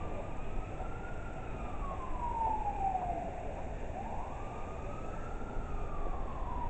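A siren wailing. Its pitch climbs quickly and then falls slowly, one cycle about every four seconds, over a low rumble.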